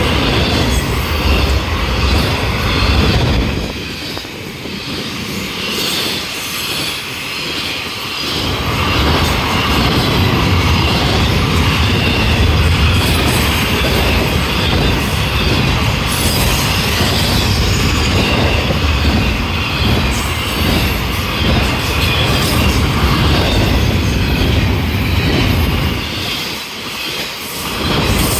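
Intermodal freight cars loaded with trailers and containers rolling past close by, a steady rush and rumble of steel wheels on rail with some high wheel squeal. It eases off for a few seconds about four seconds in and again near the end.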